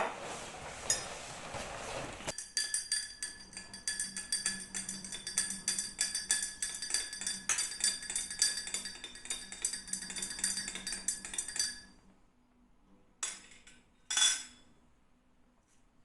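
A metal utensil clinking rapidly and steadily against a ringing dish for about ten seconds, as in beating or stirring in kitchen work, after a short rushing noise at the start; two single clinks follow near the end.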